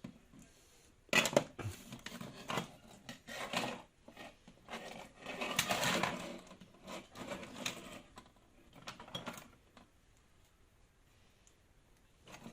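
Irregular clicking, knocking and rubbing of small hard objects being handled on a workbench, busiest in the middle, then dying away near the end.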